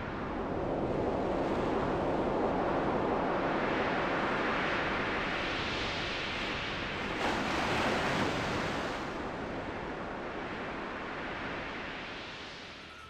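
Ocean waves washing onto a beach: a steady rushing noise that swells and eases, tailing off near the end.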